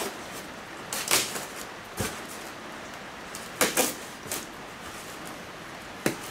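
Packing tape being cut and pulled along the seam of a styrofoam shipping box: about four short scratchy rasps of tape and foam, over a steady hiss of rain.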